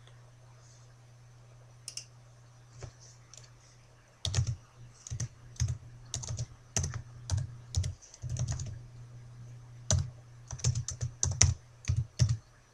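Computer keyboard being typed on: irregular keystroke clicks, a few scattered ones at first, then steady runs of keystrokes from about four seconds in, over a steady low hum.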